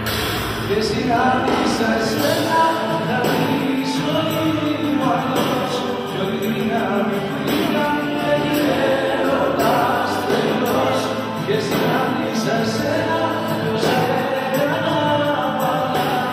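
A man singing a song into a microphone over a musical accompaniment.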